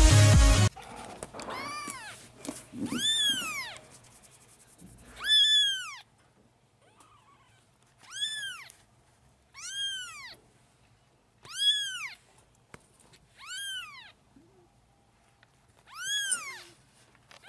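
Electronic music cuts off just under a second in. Then young kittens mew in high, thin cries, about eight of them, each rising and then falling in pitch, a second or two apart.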